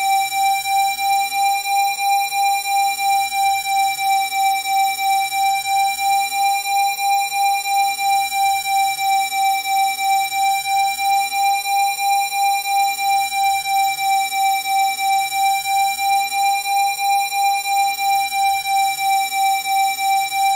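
Steady electronic 787 Hz tone, a Rife-frequency tone, pulsing evenly about two and a half times a second, with fainter higher overtones above it.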